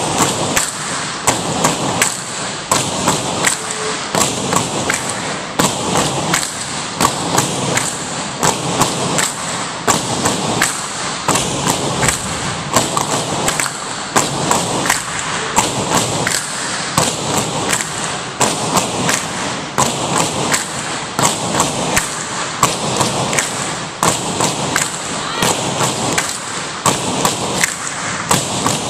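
Tinikling poles knocked on a wooden gym floor and clapped together in a steady repeating rhythm: a continuous run of sharp knocks, several a second.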